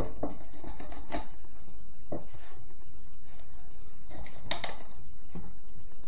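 Plastic loom pins and a metal hook making light, irregular clicks and taps as rubber loom bands are stretched and placed onto the pins, about six in all, over a steady low hum.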